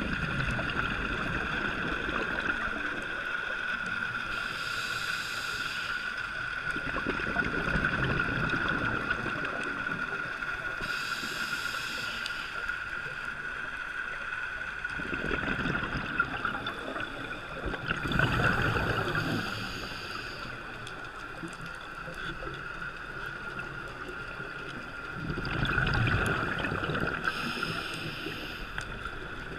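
Scuba diver breathing through a regulator, heard underwater: a short hiss on each inhalation and a rumbling rush of exhaust bubbles on each exhalation, about four breath cycles. A steady high whine runs under the breathing.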